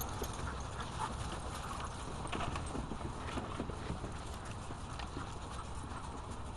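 Dogs' paws scrabbling and crunching on pea gravel as several dogs run around, a dense irregular patter of small clicks over a low rumble.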